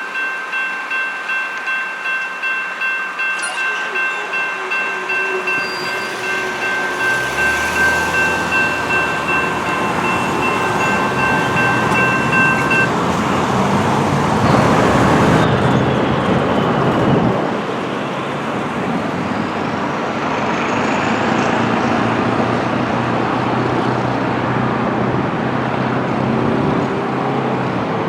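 Railroad grade-crossing bells ringing at about two strokes a second, then stopping about 13 seconds in as the crossing deactivates after the train. Road traffic follows, with vehicles passing.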